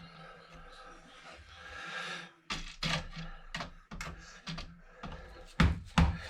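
Hard electronic parts being handled: soft rustling at first, then a run of clicks and knocks, with a few louder thunks near the end.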